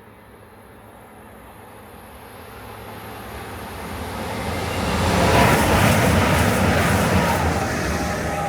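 Train approaching through the station, its noise building to a loud rush as it passes about five seconds in, with a steady engine tone that drops slightly in pitch as it goes by, then starting to fade.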